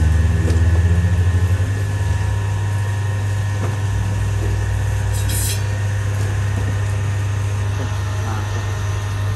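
Electric motor of a stainless-steel circular-blade chicken-cutting machine running steadily with a low hum. There is a brief high hiss about five seconds in.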